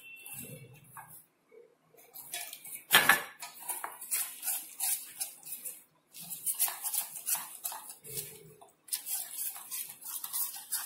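Metal spoon scraping and clinking against a stainless steel bowl while gram flour is stirred with water into a thin batter: quick, irregular scrapes and taps, with a sharper clink about three seconds in and two short pauses.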